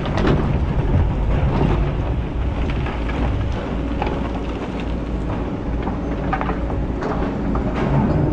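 Kobelco hydraulic excavator running steadily under load while its bucket digs into rocky ground, with scattered knocks of stones and gravel against the bucket.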